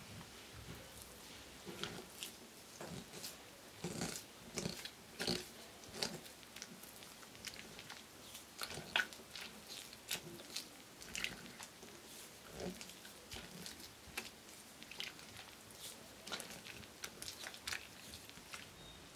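Spatula stirring lumps of creamed butter into thin wet batter in a glass bowl: an uneven run of short squelches and light scrapes against the glass.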